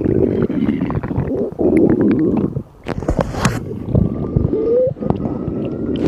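Hungry stomach rumbling and gurgling, with many small pops and a short rising squeak a little past the middle.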